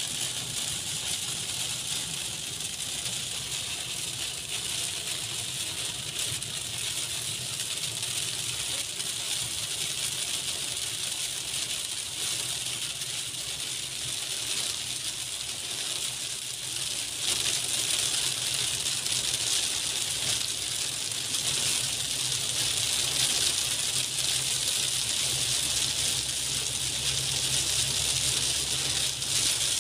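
Heavy rain drumming on a car's roof and windscreen, heard from inside the cabin as a steady dense hiss over the low hum of the moving car. The rain grows heavier about 17 seconds in.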